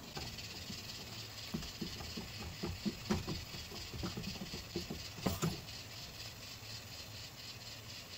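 A run of light, irregular knocks and taps, like objects being handled and set down, over a steady low hum; the loudest taps come about three seconds in and again about five seconds in.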